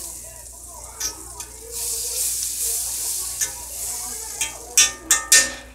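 Butter sizzling as it melts in a cast-iron skillet while being rubbed around the pan on a fork. The fork clicks sharply against the iron several times near the end.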